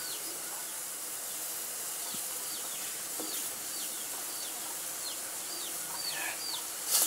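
Water with leaves boiling in a pot on a stove, giving a steady bubbling hiss. From about a second in, a bird chirps over it in short, high, falling peeps, roughly two a second.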